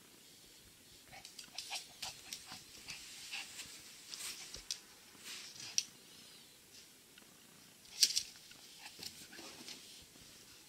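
Pomeranian puppy moving about close to the microphone: a scattered run of short clicks and rustles, the sharpest about eight seconds in.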